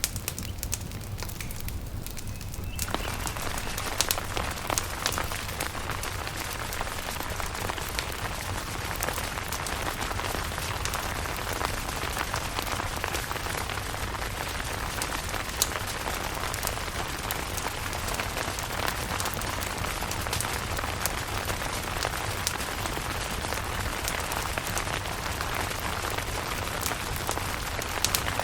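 Rain falling on a camping tent: a steady hiss of rain dotted with many sharp taps of drops, swelling in about three seconds in. A steady low rumble runs underneath.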